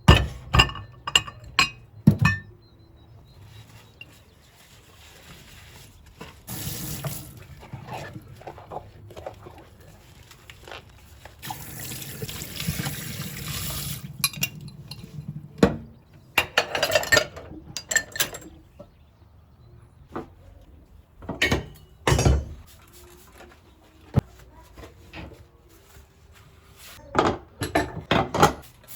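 A water tap running into a sink twice, briefly and then for a few seconds, among clinks and knocks of glass and kitchenware being handled.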